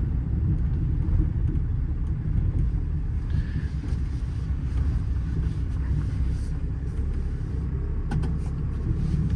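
Cab interior of a 2014 Ram 5500 on the move: a steady low drone of its Cummins 6.7-litre inline-six turbo-diesel and road noise.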